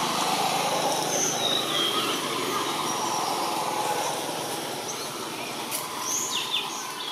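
Motor vehicle going past: a steady engine and road noise that eases off in the second half.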